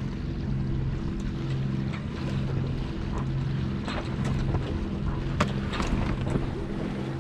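Sailboat under way: water washing against the hull and wind on the microphone over a low, pulsing hum, with a few sharper splashes between about four and six seconds in.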